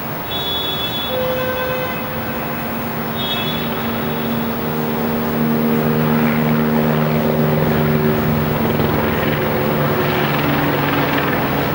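Fire engines running at a fire scene: a steady vehicle rumble over a general noise bed. Two brief high tones sound in the first few seconds, and a low steady hum builds from about four seconds in.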